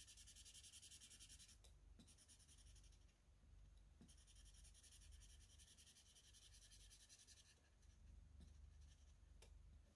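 Faint scratching of a marker tip rubbing back and forth on paper in quick, even strokes, in two spells with a lull around two to four seconds in.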